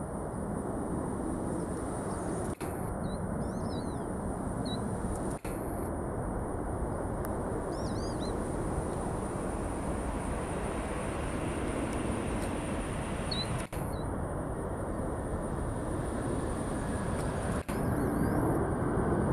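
Steady jet engine rush from a Boeing 747 freighter moving on the ground, growing louder near the end and broken by a few brief dropouts. Short high bird chirps come through a few times.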